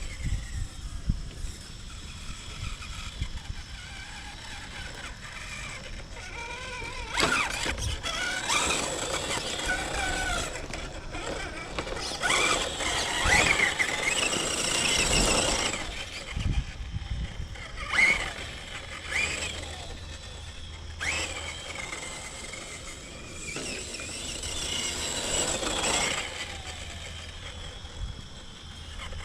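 Redcat Ascent RC crawler's brushed Holmes Hobbies 13-turn 550 motor and gears whining, the pitch rising and falling with the throttle and loudest around the middle. A few sharp knocks are scattered through it.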